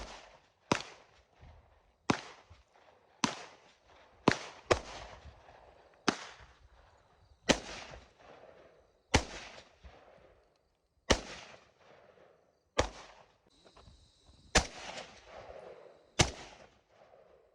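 About thirteen semi-automatic rifle shots from an AK-pattern rifle in 7.62x39, fired one at a time at an uneven pace of roughly one every one to two seconds, each crack trailing off in an echo.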